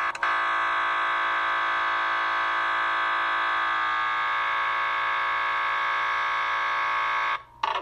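MRI scanner's gradient coils buzzing with a steady tone during a scan sequence, stopping abruptly about seven and a half seconds in, just before a different pattern begins.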